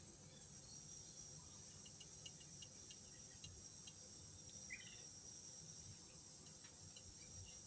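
Faint, steady, high-pitched chirring of insects such as crickets, with a few faint ticks and a brief chirp just under five seconds in.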